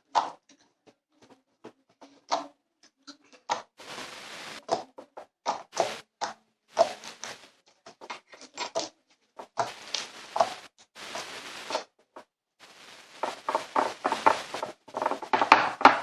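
Homemade slime being squeezed and worked in the hands, making irregular wet squelches and little pops, which come thicker near the end.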